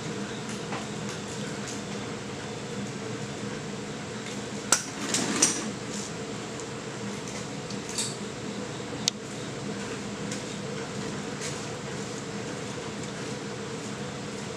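A few sharp metal clinks and taps of hand tools on a small-block Chevy during engine teardown, loudest in a short cluster about five seconds in, with single ones near eight and nine seconds, over a steady low hum.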